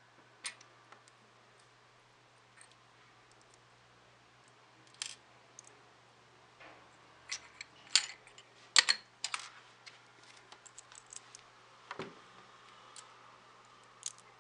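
Plastic LEGO bricks clicking and clattering as they are handled and snapped together on a wooden tabletop: scattered sharp clicks, loudest and most frequent a little past the middle.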